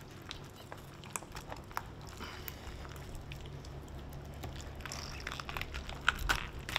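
Wet squelching and tearing of fish flesh as a mutton snapper's gills and guts are ripped out by hand: scattered small squishes and clicks, a little louder near the end, over a faint steady low hum.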